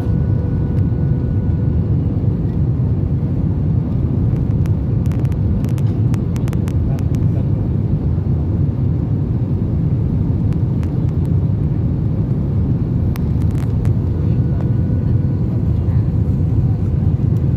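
Airliner cabin noise heard from a window seat over the wing during the descent to land: a steady, unbroken low rumble of engines and airflow, with a faint steady hum and a few faint clicks around the middle.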